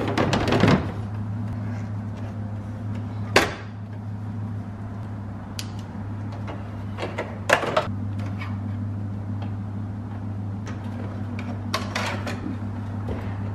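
Plastic dash trim of a Silverado being worked off by hand: a few sharp clicks and knocks, spaced several seconds apart, as the bezel is pried at and handled. A steady low hum runs underneath.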